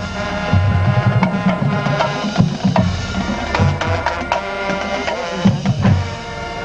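A marching band playing: sustained wind-instrument chords over drums and frequent sharp percussion strikes.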